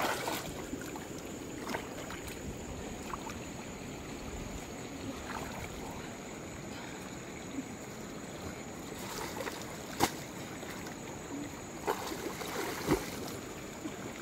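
Shallow muddy water sloshing and swishing as a person wades through it, with a few sharp splashes or knocks, the loudest about ten seconds in and two more near the end.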